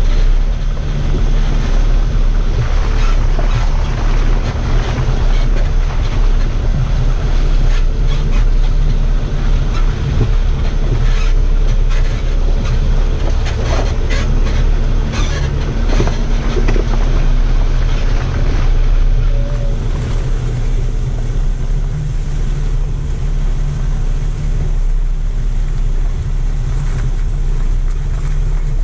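Off-road vehicle driving slowly over a rough, rocky mud track, heard from a camera mounted low on its outside: a steady, loud low rumble with frequent knocks and crunches from the tyres and suspension over stones.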